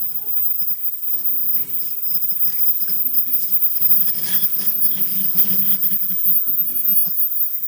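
Automatic mask production line running: a fast, dense clatter of rapid clicks and rattles from its forming and cutting stations, over a steady high hiss.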